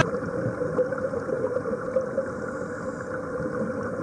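Muffled, steady motor drone heard underwater, with a constant hum and no change in pitch.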